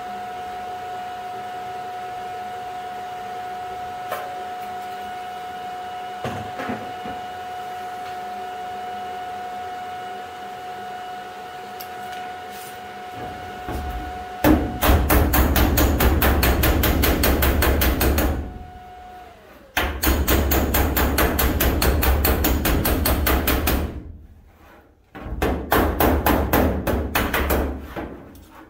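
A steady hum with a faint held tone while the patch seam in the van's sheet-steel side panel is TIG welded. About halfway through this gives way to three long runs of rapid, evenly spaced hammer strikes on the hot weld, crushing and planishing the seam flat.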